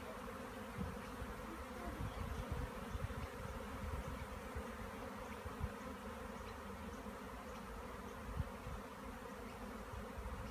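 A honeybee swarm buzzing: a steady, dense hum of many bees in the air around the disturbed swarm, with a few soft low bumps, the strongest about five and a half and eight and a half seconds in.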